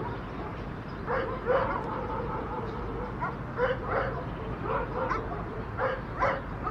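Street dogs barking: short barks, most of them in quick pairs, repeated every second or so.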